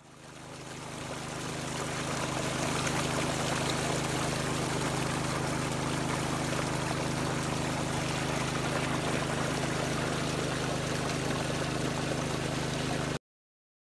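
Water running and trickling over a stream weir, with a steady low hum beneath it. It fades in over the first couple of seconds and cuts off suddenly near the end.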